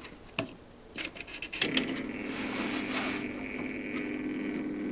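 A few sharp clicks as the time switch is set, then about a second and a half in the feeder's small electric motor starts and runs with a steady hum, switched on by the timer relay to turn the food-outlet shutter.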